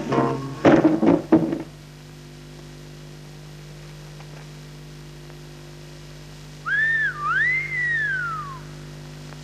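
A few loud knocks in the first second and a half, then a steady low hum. About seven seconds in comes a two-part whistle: a short up-and-down note, then a rise and a long falling glide.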